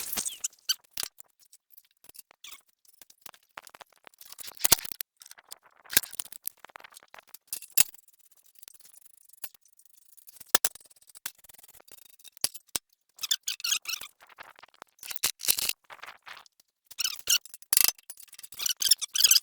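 Heavy steel plate knocking and rattling against the threaded anchor bolts it fits tightly over as it is worked loose. The sound is scattered sharp metal clanks, then bursts of rattling in the last several seconds.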